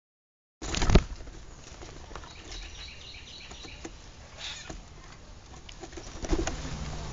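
Grackles flapping and scrabbling around a seed tray close to the microphone, with a sharp knock about a second in and a quick run of short high calls in the middle. The wing noise and rustling grow louder near the end.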